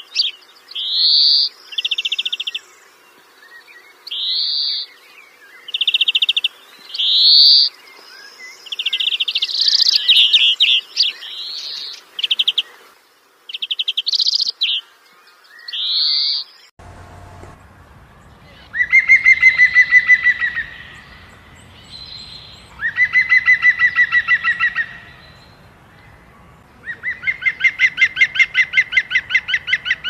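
Birds calling. For the first half, a songbird repeats short rising whistled notes mixed with brief buzzy trills. Then come three long, rattling calls, each under two seconds and about four seconds apart.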